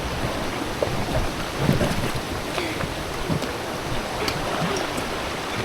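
River water rushing and splashing around a raft, with wind buffeting the microphone.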